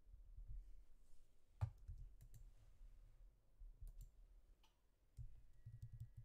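Faint computer mouse clicks: a handful of short, sharp single clicks spread irregularly, the loudest about a second and a half in, over a faint low rumble.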